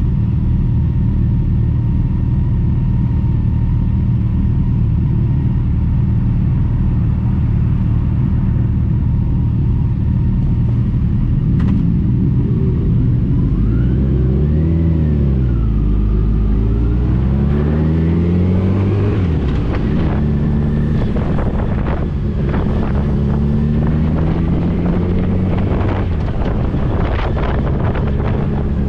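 Motorcycle engine running at a steady speed for the first third, then its pitch swings up and down as it speeds up and eases off, followed by several rising notes that drop back, as it accelerates through the gears. A few short clicks near the end.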